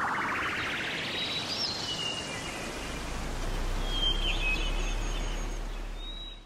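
Outdoor ambience: a steady hiss with a few short bird chirps. A rising whoosh sweeps upward over the first two seconds, and everything fades out at the very end.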